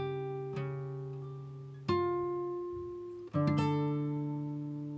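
Background music: acoustic guitar chords strummed and left to ring out, a new chord struck three times.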